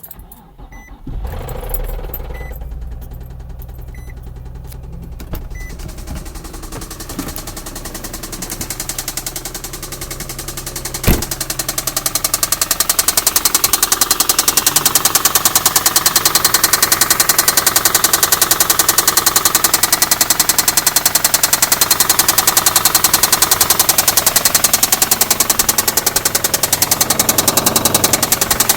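2004 Infiniti G35's 3.5-litre V6 running with a fast, regular knocking. After a sharp click about eleven seconds in, the knocking turns louder. Metal shavings were found in this engine's oil, and the owner says it sounds like a disaster.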